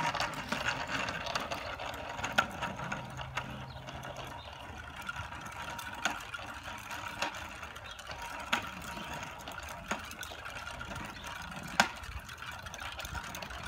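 Child's bicycle with training wheels rolling on pavement: a steady, light rattling with sharp clicks every second or two.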